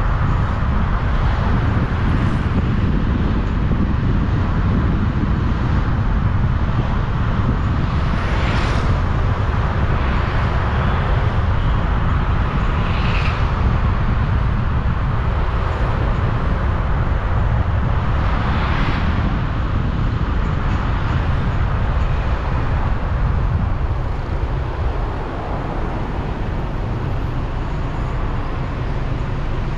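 Road traffic: a steady low rumble of motor vehicles, with three brief swishes of vehicles passing close by.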